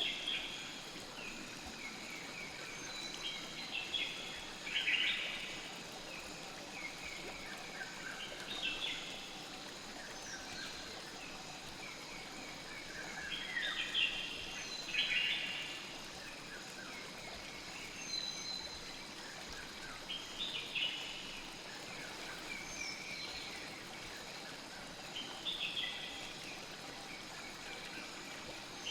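Night forest ambience: a steady hiss of flowing river water and a high insect drone, with short chirping calls every few seconds.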